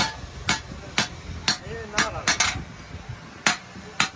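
Hand hammer striking a chisel held on a steel spade blade over an anvil. The blows are sharp and come about twice a second, with a quick run of three a little past halfway, then a pause of about a second before they resume.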